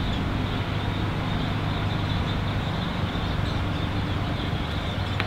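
Steady outdoor background noise with a constant low hum, unchanging throughout, like distant traffic or machinery.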